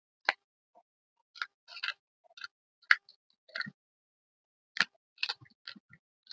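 About ten sharp, irregular crunches and cracks of dry pressed gym chalk being crushed, with dead silence between them; the loudest comes about three seconds in.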